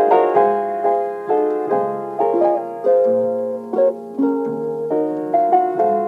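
Background instrumental music: a gentle melody of struck or plucked notes, each ringing and fading, a new note every half second or so.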